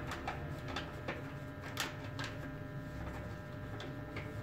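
A sheet of paper being folded and pressed into a bag shape by hand, giving irregular crisp crinkles and ticks, over a steady low hum.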